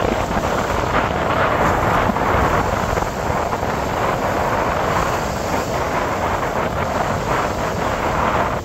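Wind buffeting the microphone: a steady rushing noise with no breaks.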